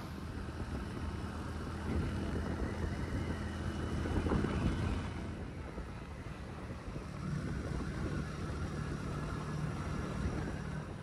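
Motorcycle engine running steadily while riding, heard from on the bike, with road and wind noise.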